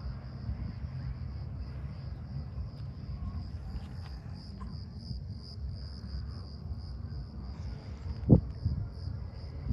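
Crickets chirring steadily in a night-time outdoor scene, over a low rumble, with a single thump near the end.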